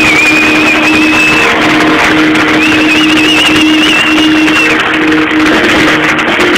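Loud live rock band heard from the audience: a high note held with a wavering vibrato, twice for about two seconds, over a sustained low note.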